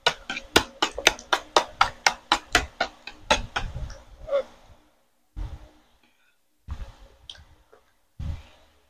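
A metal spoon clicking against a bowl of rice porridge in quick, even taps, about four a second, stopping after about three and a half seconds; then a few soft dull thumps.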